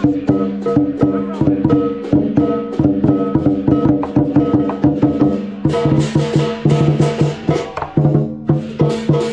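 Lion dance percussion: a Chinese lion drum beaten in a fast, even run with sharp rim clicks, over the ringing of cymbals and gong.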